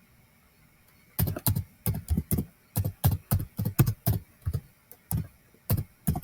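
Typing on a computer keyboard: after a second of quiet, a run of separate keystrokes at an uneven pace, a few a second.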